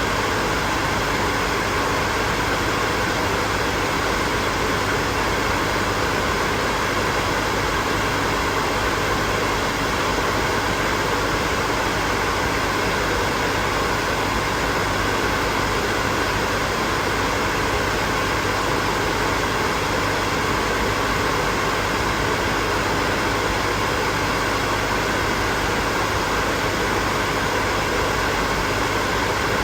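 Hair dryer running steadily: an even blowing rush with a faint hum of steady tones in it.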